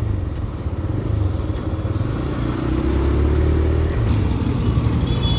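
TVS Raider 125's single-cylinder engine running as the motorcycle rides at low speed, with wind rumble on the helmet microphone. The engine note rises for a couple of seconds midway.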